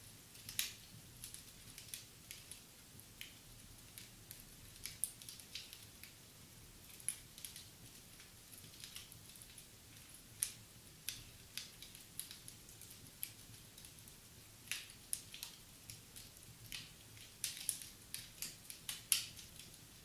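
Wood fire in a fireplace crackling: irregular sharp pops and snaps, a few a second, over a faint hiss, with a run of louder pops near the end.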